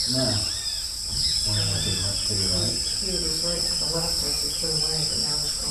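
Wetland nature ambience: a steady, high-pitched insect chorus of crickets or cicadas, with many short, repeated animal calls overlapping beneath it.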